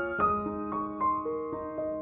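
Background music: a gentle keyboard melody of held notes, changing every half second or so.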